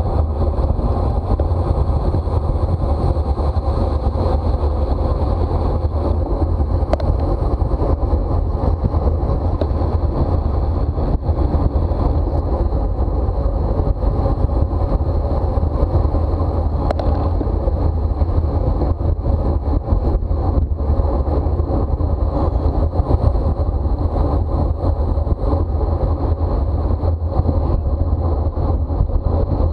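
Steady wind rush and rumble on the microphone of a bicycle-mounted camera riding at race speed in a criterium.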